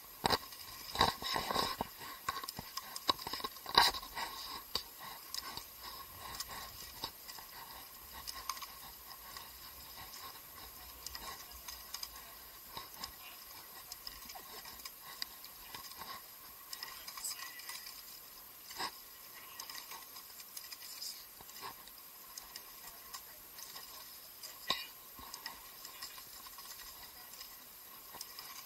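Irregular light clicks, clinks and knocks of the rowing eight's oars and fittings. They are busiest and loudest in the first few seconds, with the sharpest knock about four seconds in, then come sparser every second or two.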